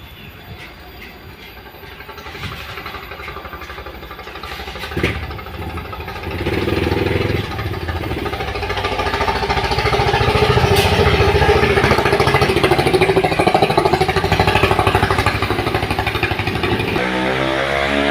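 A motor vehicle's engine running with an even, rapid pulse. It grows louder about a third of the way in and stays loud through most of the rest.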